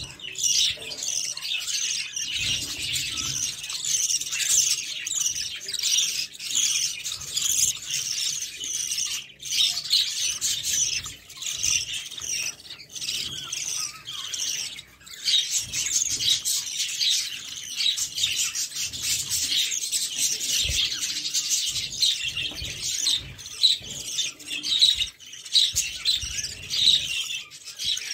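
A brood of yellow parrot chicks chirping rapidly and constantly in high calls, the food-begging calls of nestlings as one chick feeds another. Occasional soft low bumps come from the chicks moving in the nest.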